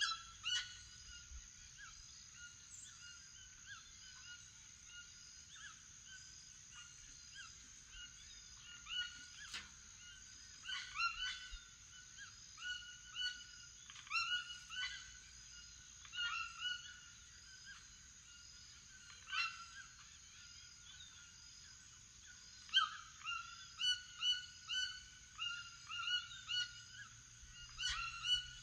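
Toucans calling: short, honking croaks, repeated in irregular runs and coming thickest near the end. A steady high-pitched buzz runs under them.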